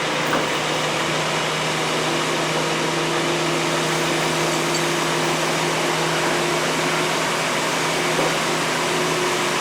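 A large engine running steadily, an even mechanical hum with a faint higher whine over it.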